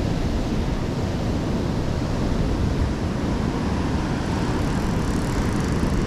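Wind buffeting the microphone as a steady rumble over the wash of ocean surf breaking and running up the beach.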